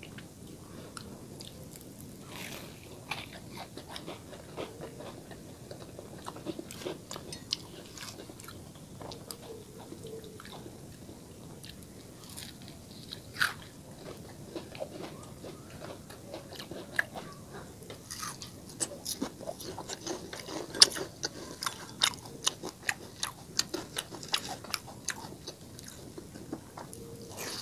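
Biting and chewing with crisp crunches, growing denser and louder in the second half as a deep-fried bread roll is bitten into.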